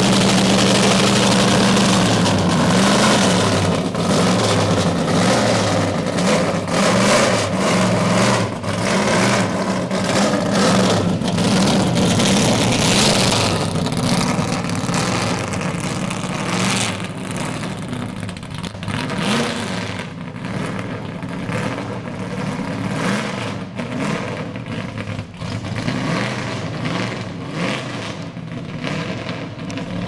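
Plymouth Superbird's V8 engine idling with a steady note, then revving as the car pulls away about two seconds in, its pitch rising and falling. The engine sound fades gradually as the car drives off into the distance.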